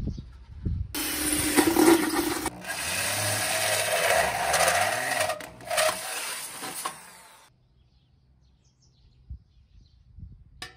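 Drill-driven hole saw cutting through the thin stainless steel wall of a food-container pan. The grinding cut starts about a second in, runs steadily for about six seconds, then stops suddenly.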